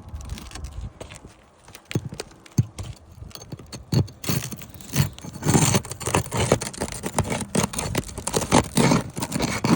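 Hammer and pry bar scraping and prying under asphalt roof shingles, breaking their tar seals, in a run of sharp scrapes and clicks that gets busier about four seconds in. The brittle shingles are tearing as they are worked loose, a sign of poor repairability. A low rumble of wind sits on the microphone.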